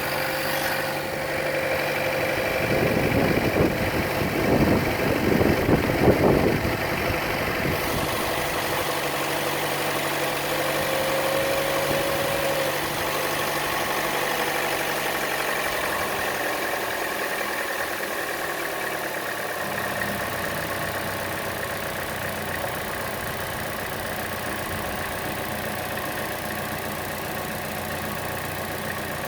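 Chevrolet Cruze engine idling with a ticking that is louder than the normal engine tick and most noticeable on the belt side; its cause is unknown to the owner. The sound gets louder and rougher for a few seconds, from about three to seven seconds in.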